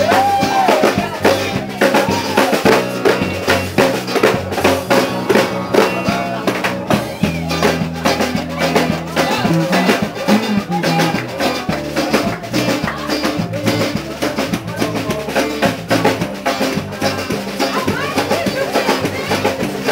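Live band playing upbeat dance music on acoustic guitars and a drum kit, with a steady drum beat and a moving bass line.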